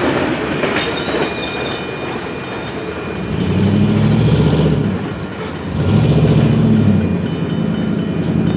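Railroad grade-crossing bell ringing in rapid, even strokes while the tail end of a Kansas City Southern grain train rolls away over the rails. Twice, about three seconds in and again near six seconds, a low droning tone swells up for a second or two and is the loudest sound.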